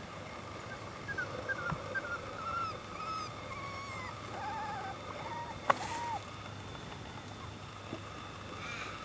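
Border Collie puppies squeaking and whimpering while they nurse: a run of short, high, wavering squeals from about a second in until about six seconds, with a single sharp click near the middle.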